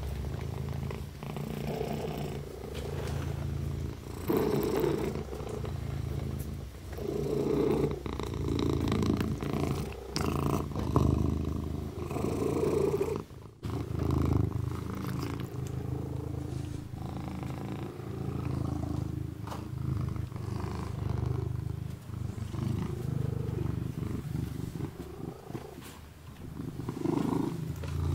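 A kitten purring steadily, the rumble swelling and easing in waves with its breathing, with a brief break about halfway through.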